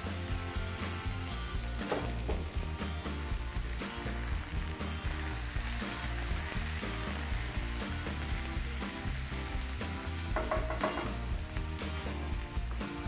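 Beef, onion and green beans sizzling in a hot wok while a slotted spatula stirs them, with small scrapes and taps of the spatula against the pan.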